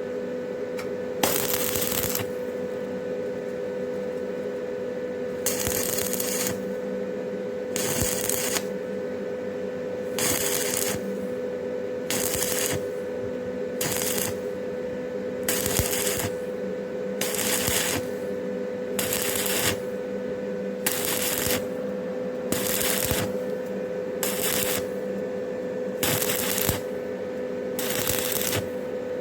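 Stick-welding arc with a 6013 electrode on steel square tube, crackling in short bursts of about half a second to a second, one every one and a half to two seconds: light, quick welds made so the thin tube wall does not burn through. A steady hum runs underneath.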